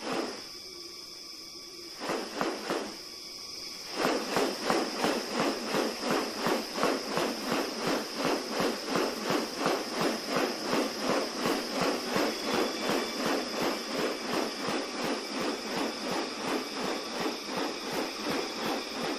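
Rainforest animal sounds: a steady high-pitched insect drone, joined about four seconds in by a loud, evenly repeating pulsing call, about two to three pulses a second.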